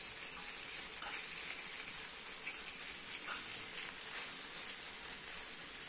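Floured turkey pieces frying in a pan, sizzling steadily with small crackles.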